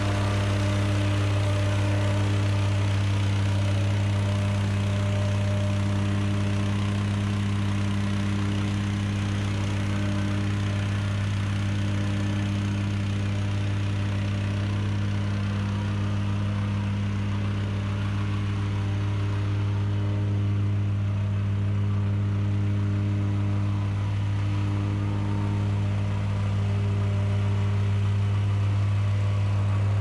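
Engine of a piece of earthmoving equipment running steadily at one constant speed, a deep even hum that never changes pitch.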